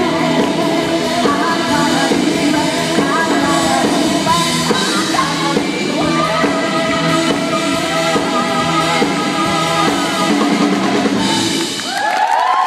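Live pop-dance song from a band with drum kit, a female lead singer and backing vocals, heard from among the audience. The song ends about twelve seconds in and the crowd starts cheering.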